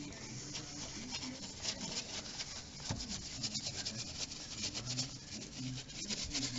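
Hand brush scrubbing wet, dirty car parts in a quick, irregular run of scratchy rubbing strokes.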